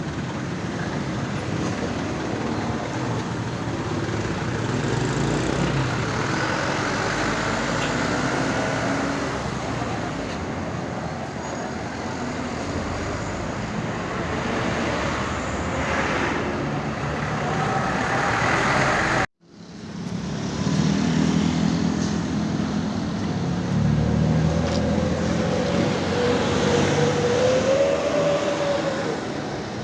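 Roadside traffic: large vehicles, likely tour buses, run past with steady engine and tyre noise. The sound drops out for an instant about two-thirds of the way through, where the recording is cut, and a faint wavering tone sounds near the end.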